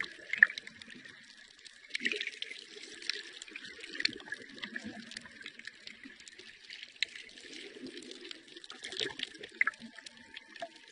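Underwater sea ambience: bubbling water movement with scattered clicks and crackles, and a faint held tone coming in near the end.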